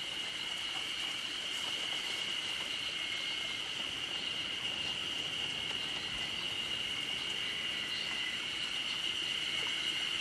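Steady, unbroken high buzz of an insect chorus, holding one pitch throughout.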